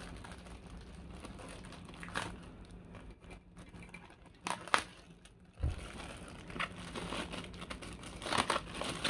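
Thin clear plastic bag crinkling as hands handle and pull at it, crackling on and off with the sharpest crackles a little before the middle. A dull knock comes just after the middle.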